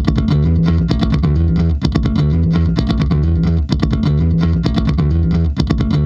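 Background music with a steady beat: bass guitar and guitar over regular drum hits.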